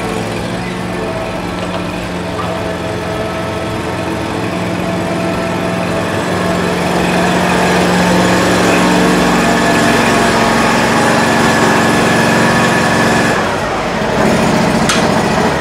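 Scag zero-turn riding mower's engine running as the mower drives in, growing louder as it comes closer. Its steady engine note changes abruptly near the end.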